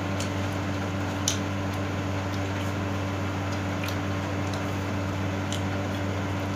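A steady low hum with a few soft clicks and wet squishes from chewing and from grilled pork belly being torn apart by hand.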